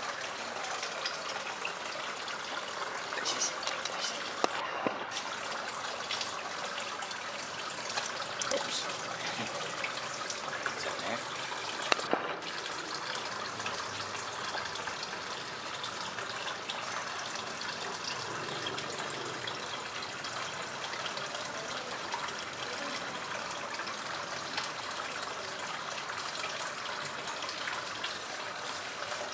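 A steady rushing noise like running water, with a couple of brief clicks around five and twelve seconds in.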